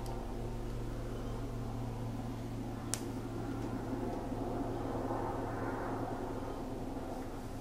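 Steady mechanical hum and whir, like a room fan or air-conditioning unit running, with a single sharp click about three seconds in.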